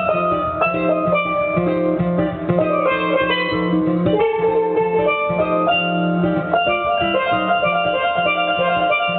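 Live instrumental music: steelpans playing a melody of struck, ringing notes, with guitar accompaniment.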